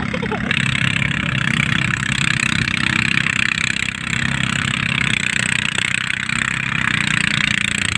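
A small engine running steadily, with a hissing rush on top that gets louder about half a second in.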